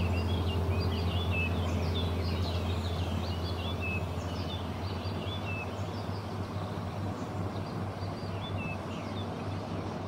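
A rushing mountain stream over rocks, with small birds chirping and singing, busily at first and more sparsely from about halfway through. A steady low hum runs underneath.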